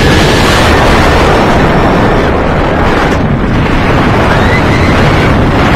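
Loud, steady wind buffeting the microphone over the rumble of the Yukon Striker's steel B&M dive-coaster train running at speed along the track.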